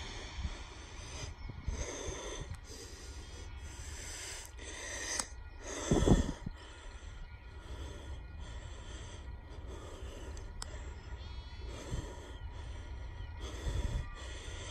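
Uneven puffs and rumbling bursts of noise buffeting the microphone, the strongest about six seconds in, with smaller ones around twelve and fourteen seconds.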